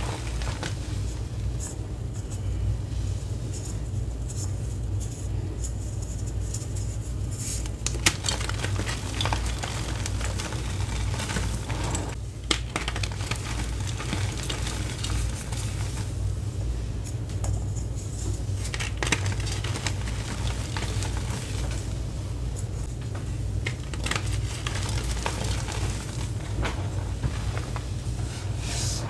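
Homemade reformed gym chalk (gym chalk, cornstarch, acetone and citric acid) being crunched and crumbled into powder by hand, a patter of small crackles with a few sharper cracks, sparser at first and thicker from about eight seconds in. A steady low hum lies underneath.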